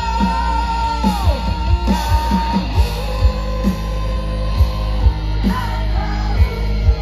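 Live rock band playing loudly, with electric guitar and a steady kick-drum beat. A long held high note slides down in pitch just over a second in.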